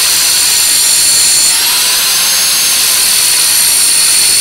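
Angle grinder cutting into a steel kingpin bushing: a loud, steady high whine over a grinding hiss, dipping slightly in pitch about one and a half seconds in. The bushing is all steel, copper-plated only inside, not bronze, and the grinder barely cuts it.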